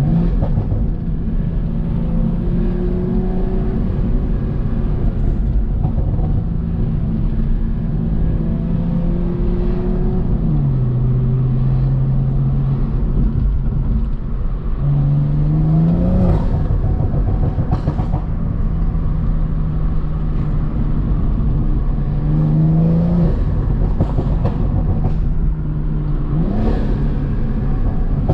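BMW M340i's turbocharged B58 inline-six, fitted with an aftermarket turbo intake, running steadily under way. Its note drops about ten seconds in, then climbs sharply three times in the second half as the engine revs up.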